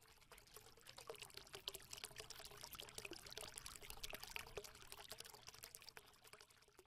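Faint trickling, pouring sound: a dense, irregular patter of tiny ticks that swells after about a second and fades away near the end.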